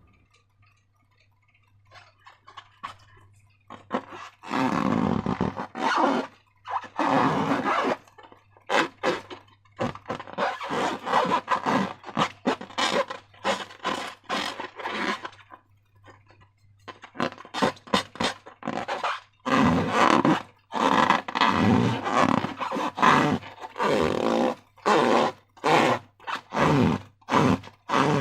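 Slime being squished and worked by hand, making irregular wet squelching bursts that come quicker and shorter in the second half, over a faint steady low hum.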